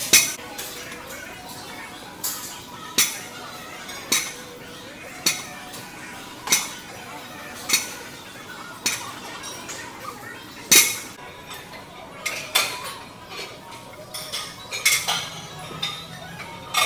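Sharp metallic clanks of barbell weight plates, about one a second, over background voices.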